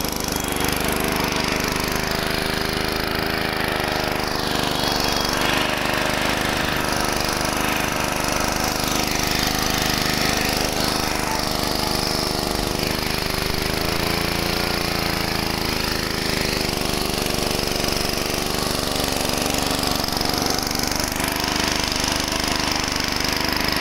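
Motorised flour mill (chakki) running steadily, grinding roasted chickpeas into sattu.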